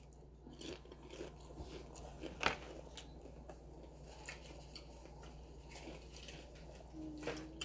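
Faint rustling of a paper napkin and small clicks as fingers are wiped, with a short low hum near the end.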